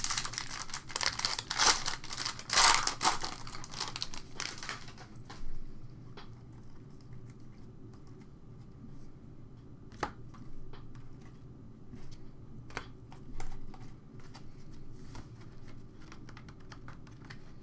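Foil trading card pack crinkling and tearing open for the first few seconds. After that, quieter rustling and a few light taps as the cards are flipped through and set down on the mat.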